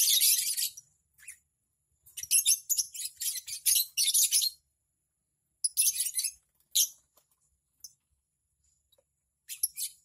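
Lovebirds giving shrill, high-pitched chattering calls in bursts: one at the start, a longer run from about two to four and a half seconds in, short bursts around six seconds, and another near the end.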